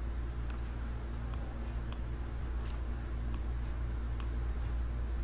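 Faint, irregular clicks of a computer mouse, six or so spaced about half a second to a second apart, over a steady low electrical hum.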